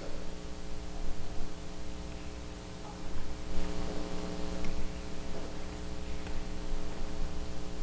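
A steady hum made of several held tones, with no speech.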